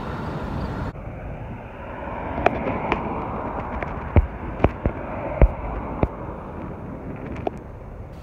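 Road and wind noise from a moving car for about a second, then it changes abruptly to gusty wind rushing on the microphone, with a scattering of sharp clicks and pops.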